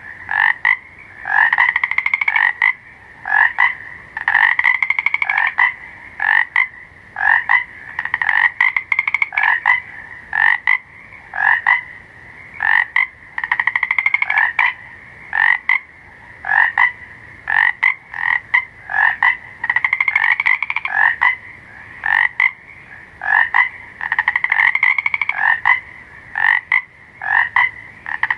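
Frogs croaking: rapid pulsed calls, each half a second to a second long, repeating every one to two seconds with short single croaks between them, over a steady high-pitched background drone.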